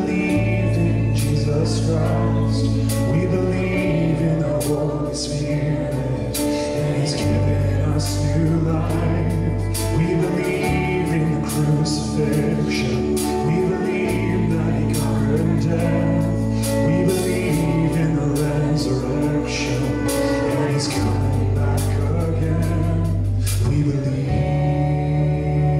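Live worship band playing a contemporary Christian song between sung lines. Electric bass holds long notes that change every few seconds under a Yamaha keyboard and a drum kit with frequent cymbal crashes, with some singing over it.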